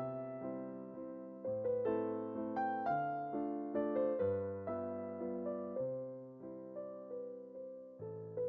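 Background music: a gentle electric piano playing chords and a melody, its notes struck and fading, with a bass note changing every couple of seconds.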